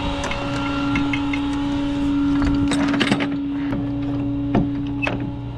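Flatbed tow truck running with a steady pitched hum, over which come scattered metallic clicks and knocks as the steel winch cable and hardware are handled on the aluminium deck.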